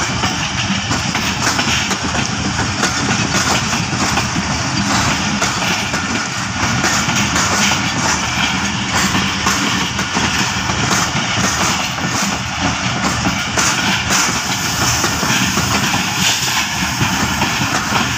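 Diesel locomotive engine idling steadily, with the rumble of passenger coaches rolling past on the next track.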